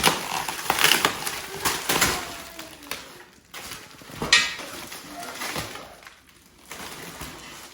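Packaging being handled and pulled apart as parts are unpacked, in irregular crackling and scraping bursts with a few sharp knocks.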